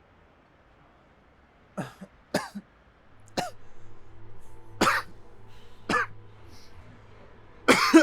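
A person coughing: six separate coughs, roughly a second apart, after a quiet start. A low steady hum comes in about three seconds in.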